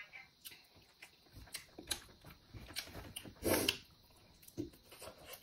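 A person eating chicken curry and rice with her fingers: scattered soft mouth clicks and smacks of chewing, with a louder bite into a piece of chicken about three and a half seconds in.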